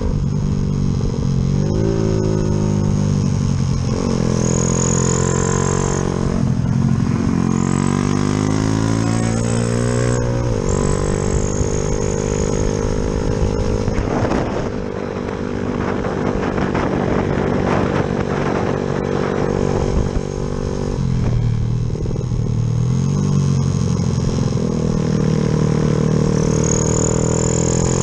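Yamaha Jupiter MX motorcycle's single-cylinder four-stroke engine, bored out with a 72 mm piston, under way. It revs up and drops back again and again through the gears, with rising and falling pitch in the first ten seconds and again a little after twenty seconds, and holds steadier revs near the end.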